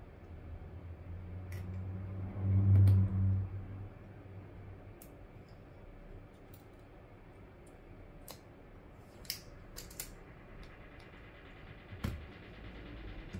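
Small metallic clicks and ticks of a precision screwdriver and tiny screws and brackets on the metal back plate of an iPhone 6 display assembly. A low hum swells in the first seconds, loudest about three seconds in, and stops about four seconds in.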